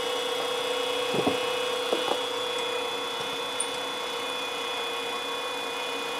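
Benchtop milling machine running, its end mill cutting into an aluminium cylinder head with a steady whine. A few short knocks come about one and two seconds in.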